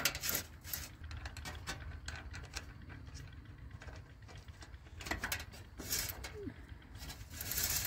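Faint scattered clicks and knocks of a bicycle's pedal crank arm and its nut being handled and fitted back on by hand, the nut having worked loose and fallen off. The clicks come a little louder twice, about five seconds in and near the end.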